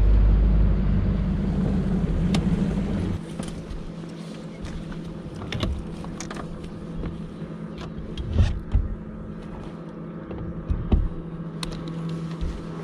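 Bass boat motor running with a loud low rumble that drops about three seconds in to a steady low hum, as the boat slows. Scattered knocks and clunks of footsteps and gear on the deck.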